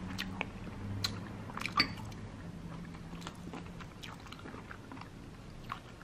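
A person chewing a mouthful of paella with beet water kimchi, with a few short sharp mouth clicks, most of them in the first two seconds, over a faint low hum.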